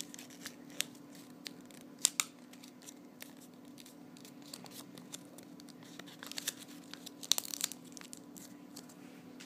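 Paper being folded and creased by hand: scattered sharp crinkles and crackles, bunched about two seconds in and again from about six to eight seconds in.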